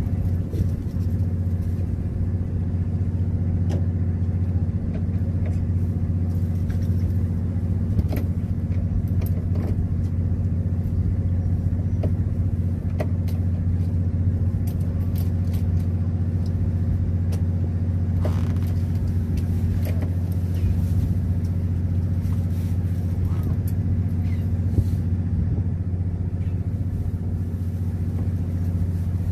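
Fishing boat's engine running steadily, a constant low drone, with a few faint light clicks over it.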